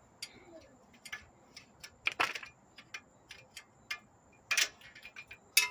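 Hand ratchet wrench clicking in short runs as a bolt is turned, with a few louder metallic clinks about two seconds in, midway through the second half and near the end.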